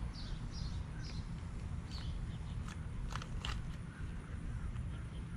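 Outdoor ambience: a steady low rumble, with a few short high bird chirps early on and some scattered faint clicks.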